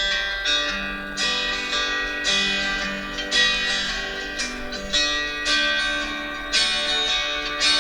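Guitar music: strummed chords, a fresh chord struck roughly every second and ringing out between strums, playing from a video's soundtrack.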